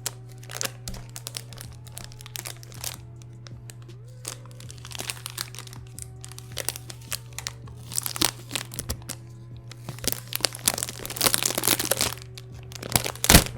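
Paper wrapping crinkling, crackling and tearing in irregular bursts as a keyboard is unwrapped by hand, busiest and loudest in the last few seconds. Background music with steady held notes plays underneath.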